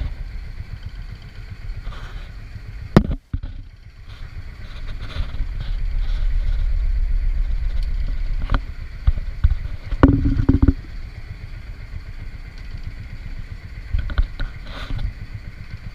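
A small fishing boat's engine running steadily, with a few knocks and clatters on board.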